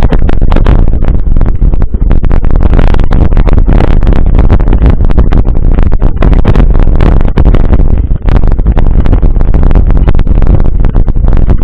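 Heavy wind buffeting on the microphone of a camera riding on a moving mountain bike, a loud, steady rumble broken by irregular jolts and rattles from the rough ride.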